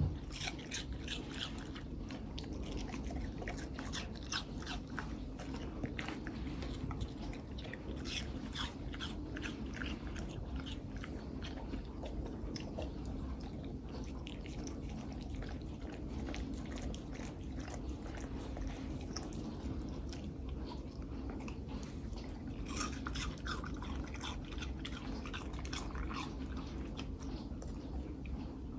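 A dog chewing and biting into watermelon chunks, with irregular crunches and clicks throughout.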